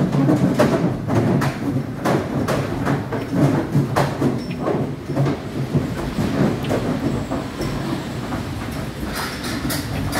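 Cattle hooves clattering and knocking irregularly on the wooden plank floor of a livestock truck as calves are walked out.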